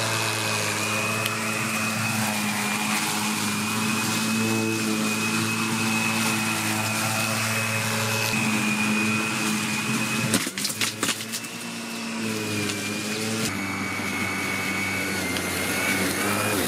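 Parkside PRMA 40-Li C1 cordless brushless lawn mower running steadily while cutting grass: a steady hum with a high whine over it. About ten seconds in comes a quick cluster of sharp knocks, and near the end the running sound shifts slightly.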